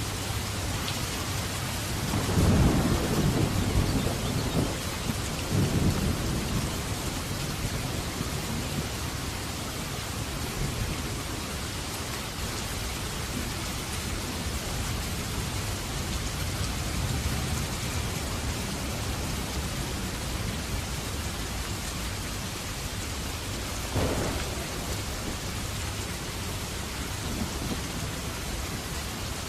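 Steady rain falling, with thunder rumbling low for a few seconds starting about two seconds in, and a shorter rumble later on.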